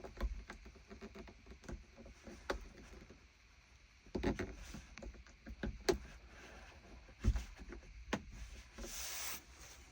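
Scattered small plastic clicks and taps as a festoon LED bulb is pushed into a car's interior dome-light socket and the light housing is handled, with a short rustle near the end.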